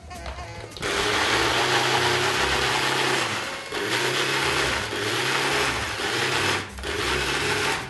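Small electric mixer running, blending cooked radicchio into a cream. The motor starts about a second in and runs in three stretches with two short pauses.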